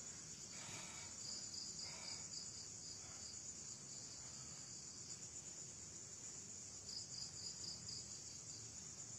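Night insects, crickets, trilling steadily and high, with two runs of quick chirps at about four a second, one about a second in and one near the seventh second.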